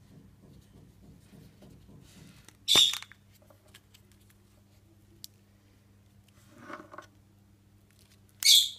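Hands handling and twisting open a plastic surprise-egg capsule, with soft rustling, broken by two short, sharp, high-pitched squeaks, about three seconds in and near the end.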